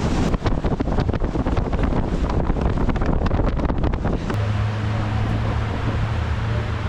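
Strong wind buffeting the microphone over waves crashing against a pier. About four seconds in it cuts abruptly to a steady low hum under an even rush of noise.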